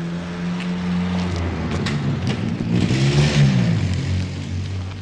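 A motor vehicle passing close by. Its engine grows louder to a peak a little past halfway, the pitch rising and then dropping, and it fades back into a steady low hum.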